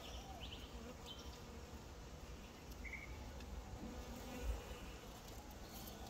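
Honeybees buzzing faintly as they fly about a flower, the buzz rising and falling in pitch as they pass. A brief low bump comes about halfway.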